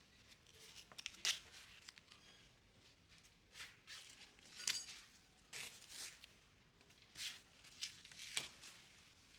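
A series of short, sharp scrapes, about eight of them at irregular intervals, the loudest near the start and around the middle and near the end.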